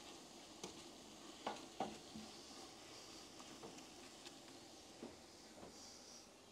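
Faint sizzling of a sofrito cooking over low heat in a large aluminium pot, with a wooden spoon stirring it and knocking against the pot a few times.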